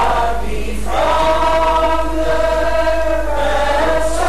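A group of voices singing a slow hymn tune, holding each note for a second or two before moving to the next.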